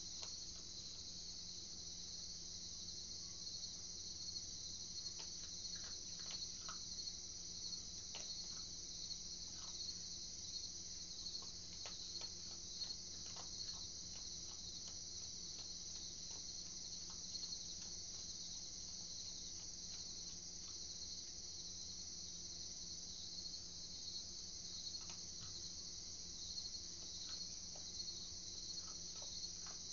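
Crickets chirping in a steady, faint night chorus, with scattered soft irregular clicks from an opossum chewing scattered dry food.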